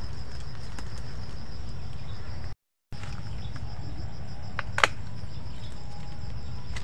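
Insects trill steadily with a high, evenly pulsing note over a constant low rumble. About two-thirds of the way through come a couple of sharp clicks and one loud snap. The sound cuts out briefly a little before the middle.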